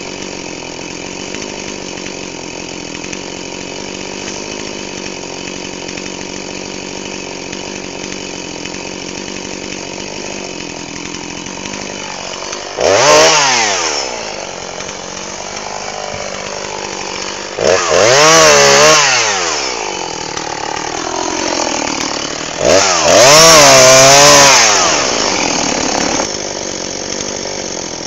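Jonsered chainsaw revving up to full throttle three times as it cuts through fallen branches. Each cut lasts one to three seconds, its pitch rising and wavering under load, then dropping back. A steady engine idle runs underneath between cuts.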